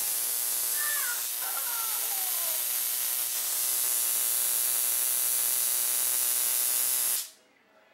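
Battery-powered high-voltage spark gap igniter arcing continuously, a loud steady buzzing hiss that cuts off suddenly about seven seconds in.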